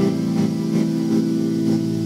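Instrumental background music with steady, held tones.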